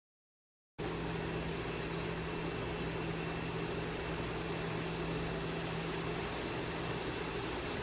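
A steady machine hum with an even hiss, cutting in abruptly about a second in after dead silence and holding level.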